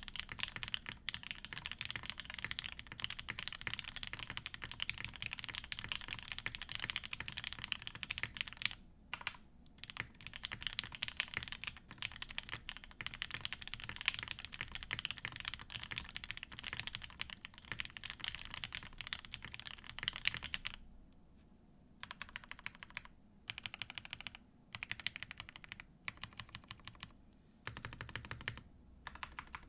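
Mechanical keyboard typing: a Mode80 FE TKL with lubed Alpaca linear switches on a flexible polycarbonate plate, with GMK keycaps, giving a soft, muted clack. Fast continuous typing with a brief pause about nine seconds in; from about two-thirds of the way through it breaks into shorter runs with gaps between.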